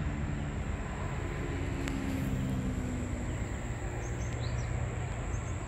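Outdoor background with a low engine hum, like passing road traffic, under a steady thin high whine. A few short bird chirps come about four seconds in.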